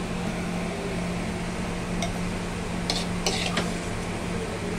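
A few metal clinks and scrapes of a spoon against a steel kadai and mixer-grinder jar as boiled masala is scooped across, about two seconds in and again around three seconds, over a steady low hum.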